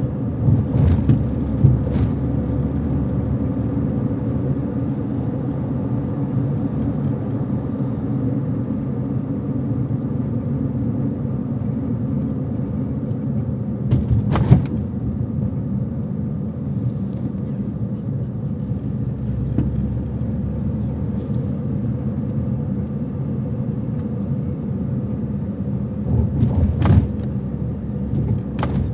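Car driving on the road: a steady low rumble of engine and tyre noise, broken by short sharp knocks about a second in, halfway through and near the end.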